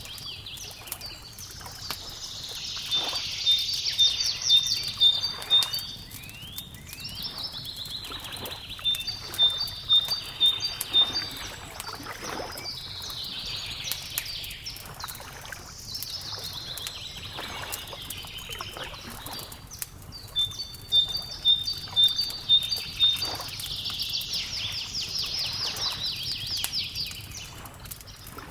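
Wood fire crackling and popping in clusters of sharp snaps, with songbirds singing over it: repeated high chirping phrases and quick even trills of several notes a second. A soft steady low wash runs underneath.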